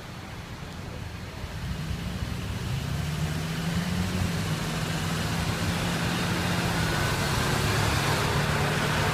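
Motor vehicle running, a low engine hum with tyre and road noise that grows steadily louder.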